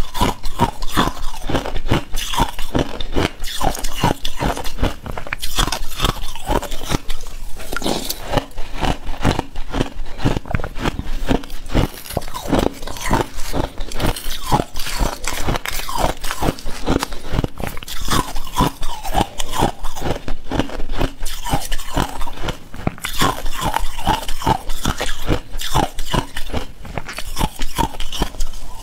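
Crunching of slushy shaved ice being bitten and chewed close to a clip-on microphone: a steady run of crisp crunches, several a second.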